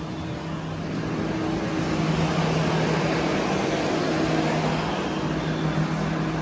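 Vehicle engine running with a steady low hum, getting louder over the first two seconds and then holding steady.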